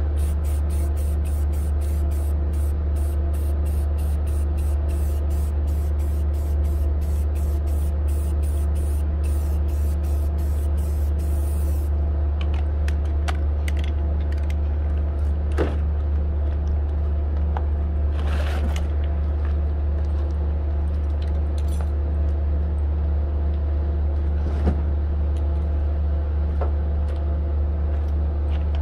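Aerosol spray-paint can spraying green touch-up paint in rapid short bursts of hiss, about four a second, for the first dozen seconds, then a few single longer bursts. A steady low hum runs underneath throughout.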